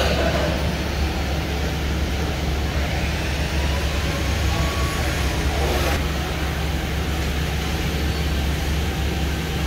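JCMDQ 3100 veneer rip-cutting machine running: a steady low motor hum with a constant mechanical noise over it.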